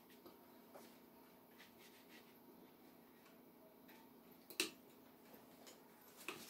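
Near silence: a fine watercolour brush working on paper, with a few faint ticks over a low steady hum and one sharp click about four and a half seconds in.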